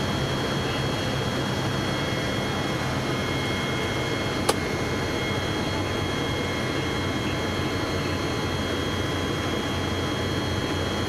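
CAP 10B's four-cylinder Lycoming engine and propeller running steadily in flight, heard inside the cockpit, with a single sharp click about four and a half seconds in.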